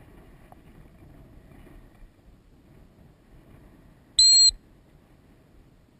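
A single short, loud blast of a dog training whistle, one steady high note about a third of a second long, a bit over four seconds in: a stop or sit signal to a retriever running a blind retrieve. Faint wind and open-marsh background around it.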